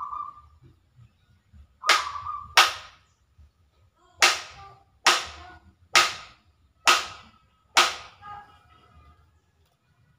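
Seven sharp bangs in an even rhythm, a little under one a second, each dying away with a short echoing ring.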